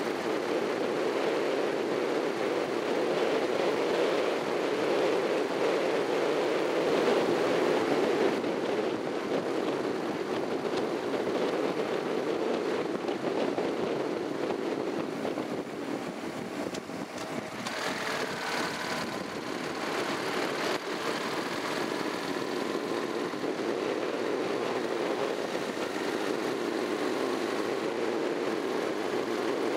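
Wind rush and riding noise from a Honda NC700X motorcycle under way, its 670 cc parallel-twin engine running beneath the steady rush. The noise eases briefly about halfway through, and a faint whine rising in pitch follows.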